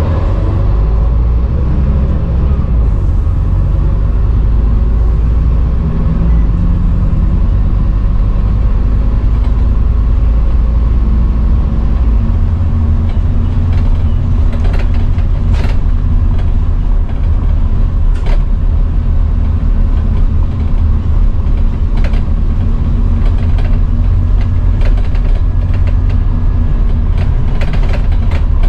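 Scania N230UD double-decker bus under way, heard from the upper deck: a steady low drone from its five-cylinder diesel engine and drivetrain, changing note about six and again about twelve seconds in. Sharp rattles and creaks from the bodywork and fittings come through now and then in the second half.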